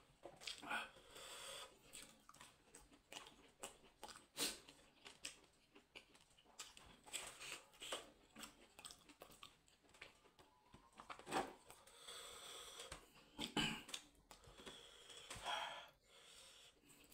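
Faint, close-miked eating sounds: soft chewing and wet mouth clicks, fingers picking at sauced chicken, and several audible breaths.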